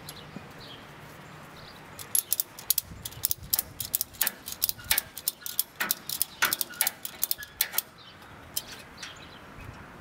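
Ratchet strap buckle being cranked, its pawl clicking in quick irregular runs from about two seconds in until near the end, as the tie-down strap is pulled tight.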